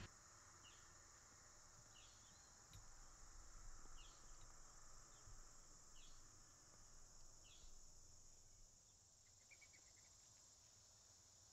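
Faint evening insect chorus, a steady high-pitched drone, with short chirps about every second and a half and a quick run of ticks near the end.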